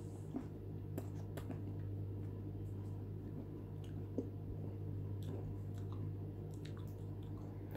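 A person chewing a fresh hot chili pepper, with scattered small clicks from the mouth, over a steady low hum.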